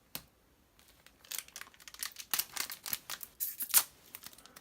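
Foil booster-pack wrapper being torn open and crinkled: a single tick at the start, then from about a second in a run of sharp crackles.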